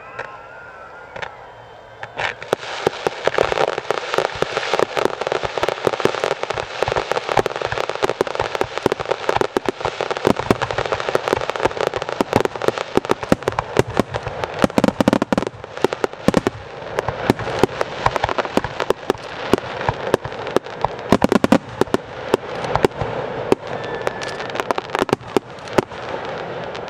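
Fireworks display: a dense, continuous barrage of sharp bangs and crackling that starts about two seconds in and keeps going without a break.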